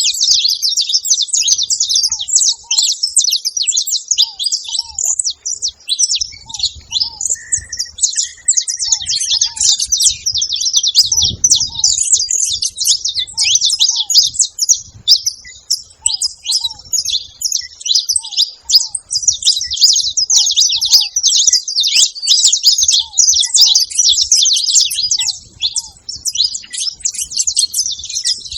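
Saffron finches chirping and chattering non-stop, many calls overlapping, with a fainter, lower short call repeating about once a second and a brief whistle about a third of the way in.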